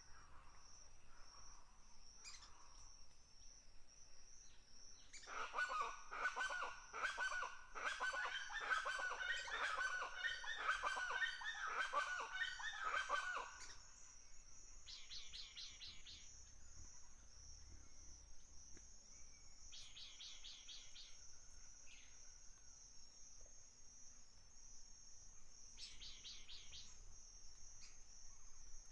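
A steady high insect buzz with short trills every few seconds. From about five seconds in to about thirteen seconds, many birds call rapidly and loudly, over each other.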